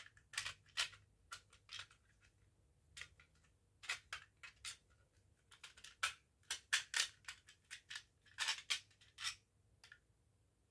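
Irregular small plastic clicks and scrapes from handling a manual fire alarm call point while trying to fit its glass back in.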